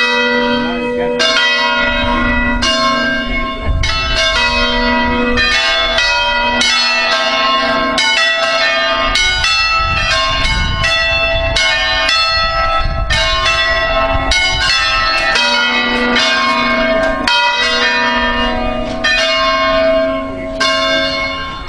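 A concerto of five hand-rung church bells on B3, swung full circle on their wheels and striking one after another in a rapid, overlapping sequence as a solemn peal for Mass. The ringing falls away at the very end.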